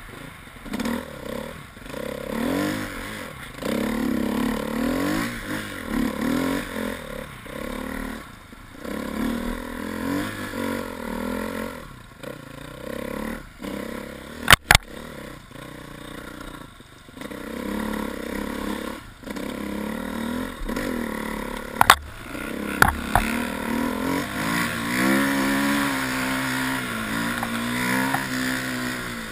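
Husqvarna TE 250 enduro motorcycle engine revving up and down over and over as the bike is ridden through snow. A few sharp knocks cut through, two close together about halfway and a couple more later, and the engine note steadies somewhat near the end.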